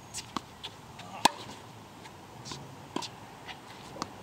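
Tennis ball knocks on a hard court: several sharp, separate hits and bounces at uneven intervals, the loudest about a second in.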